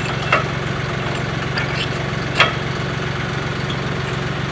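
John Deere 5075E tractor's diesel engine idling steadily, with two sharp metallic clicks, one about a third of a second in and one about halfway through.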